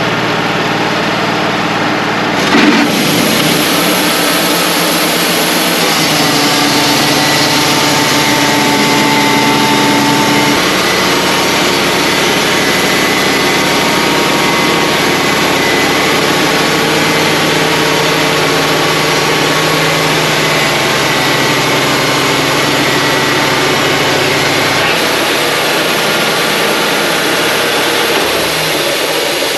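Wood-Mizer LT35 portable band sawmill running steadily under load. A short knock comes about two and a half seconds in, after which a high hiss joins; the hum shifts in pitch a few times and eases slightly near the end.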